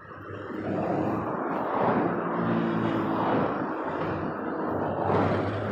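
Road traffic passing close by, a rush of tyres and engines building up within the first second and swelling twice, with the steady drone of a heavy vehicle's engine underneath.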